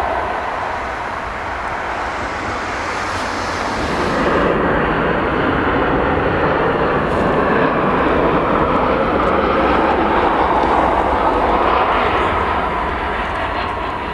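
Jet engine noise from Airbus A320-family airliners: first an airliner's engines at takeoff thrust as it lifts off, then, about four and a half seconds in, a landing jet's engines as it crosses the threshold and touches down, swelling through the middle and easing near the end.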